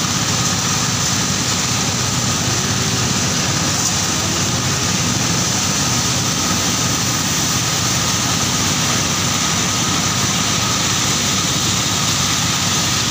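Engine-driven corn milling machine running steadily at working speed: a continuous loud mechanical noise with a faint steady whine, unchanging throughout.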